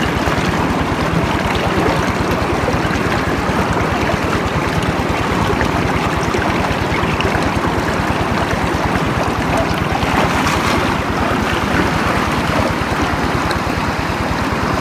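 Stream water flowing, a steady rushing noise, with a low rumble of wind on the microphone.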